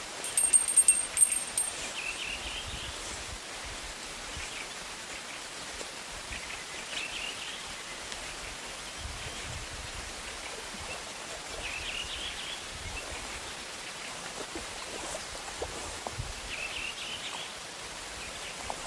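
The little bite-alarm bell on a bottom fishing line jingles briefly near the start. A bird calls four times, evenly spaced, over a steady outdoor hiss.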